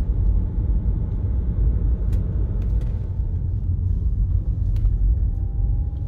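Steady low rumble of a car driving on a road, heard from inside the cabin.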